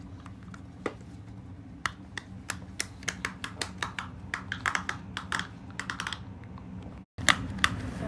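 Hard-shell pop-it fidget: its green silicone bubbles, set in a hard white plastic frame, are pushed through one after another. This makes an irregular run of sharp pops, sparse at first and coming faster through the middle, about three or four a second.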